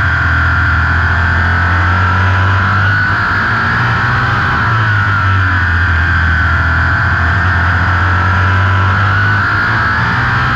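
Open-wheel race car's engine heard from onboard, running hard at racing speed. Its pitch rises and falls every few seconds as the car goes through the straights and turns.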